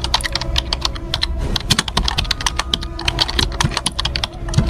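Computer keyboard typing: a rapid, uneven run of keystroke clicks, the typing sound that goes with text being typed out onto a slide.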